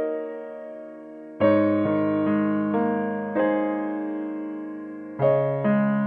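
Slow background piano music: chords and single notes struck a few at a time and left to ring and fade, with a short pause in new notes before a fresh chord about a second and a half in.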